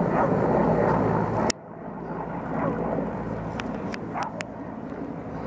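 Helicopter flying at a distance, a steady low drone. About a second and a half in the sound cuts off abruptly and comes back quieter, with a few sharp clicks later on.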